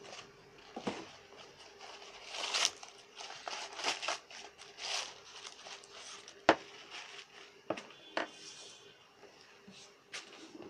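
Paper wrapping crinkling and rustling as a package is unwrapped by hand, with several sharp knocks; the loudest comes about six and a half seconds in.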